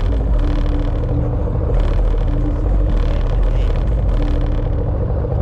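Steady low rumble with a faint hum that breaks off and returns every second or so.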